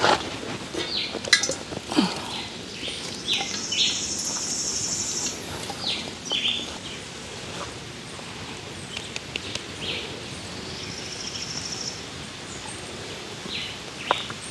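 Wild birds calling with short chirps; twice, a high buzzing trill lasts about two seconds.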